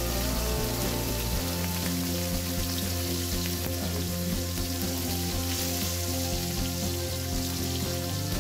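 Pieces of rohu fish sizzling steadily as they fry in mustard oil in a metal kadai, over background music.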